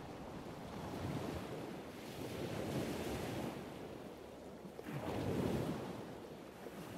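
Water rushing and splashing along a sailboat's bow as it sails through open-sea waves, swelling and easing, loudest about five seconds in, with wind buffeting the microphone.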